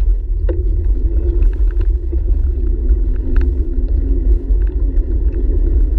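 Steady low rumble of wind and riding vibration on a bicycle-mounted action camera as the bike rolls along a trail, with scattered faint clicks.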